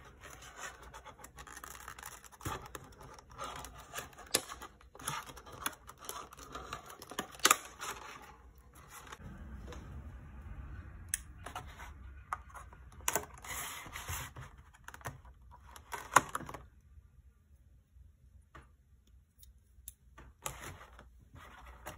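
Clear plastic clamshell package being handled and opened: stiff plastic crackling and clicking, with sharp snaps about seven and a half and sixteen seconds in, then a few quieter seconds before more handling near the end.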